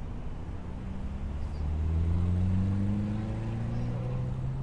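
RC rock crawler's electric motor and gear drivetrain whining as it crawls up a rock, its pitch rising slowly and growing louder toward the middle before fading near the end.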